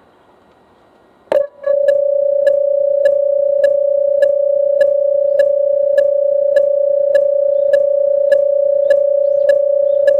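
Electronic railway level-crossing alarm starting suddenly about a second in: a steady electronic tone with a sharp regular strike a little under twice a second, warning of an approaching train.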